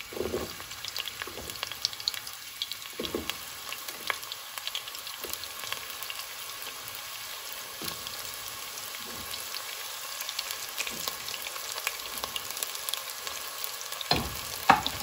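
Chopped onion frying in hot cooking oil in a pot: a steady sizzle with many small crackles and pops. A few louder knocks come near the end.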